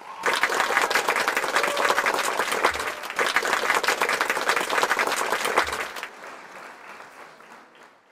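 Applause sound effect with many hands clapping densely. It starts just after the beginning, stays loud for about six seconds, then fades away.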